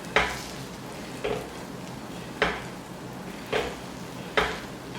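A metal blade chopping down through a dosa onto a hot tawa griddle, five sharp strikes about a second apart, cutting it into pieces, over a soft steady sizzle of the dosa cooking.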